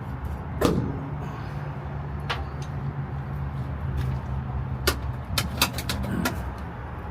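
Hand tools clicking and knocking on metal while bolts are taken off inside a pickup truck's cab: a few scattered sharp clicks, then a quick run of them near the end, over a steady low hum.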